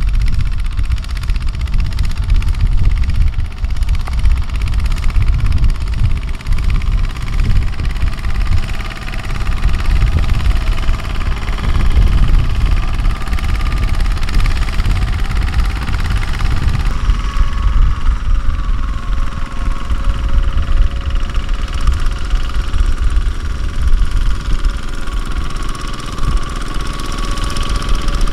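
Single-cylinder diesel engine of a two-wheel walking tractor running steadily while it pulls a trailer loaded with rice sacks across a harvested paddy. A faint, steady higher whine joins about two-thirds of the way through.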